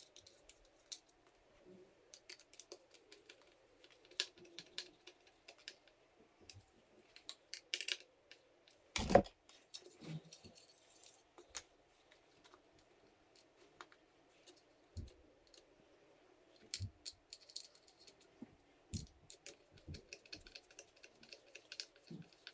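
Scattered light clicks and taps of small trim pieces and screws being handled and fitted onto a steering wheel, with one louder knock about nine seconds in, over a faint steady hum.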